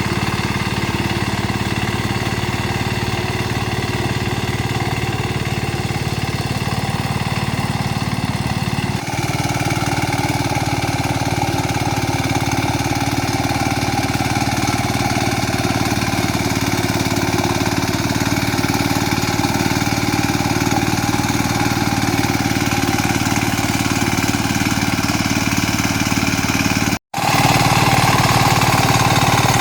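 Mini tractor engine running steadily while it pulls a harrow through a muddy rice field. It breaks off for an instant near the end.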